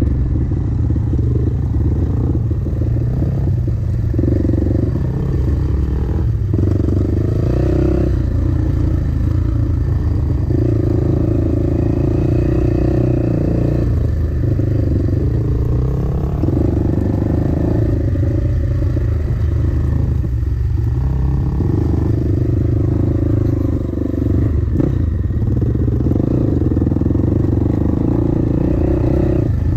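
Dirt bike engine running as the bike is ridden slowly along a rough trail, the throttle opening and easing off every few seconds, with a few brief knocks from the bike over the ground.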